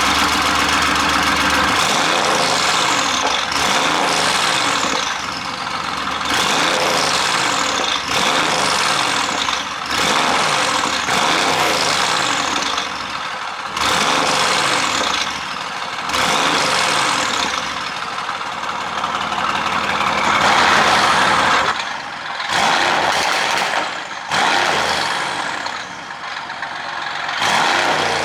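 Mercedes-AMG GT's 4.0-litre twin-turbo V8 revved again and again, about every two seconds, each rev falling away with pops and crackles from the exhaust on the overrun, the effect of an ECU pop-and-crackle tune.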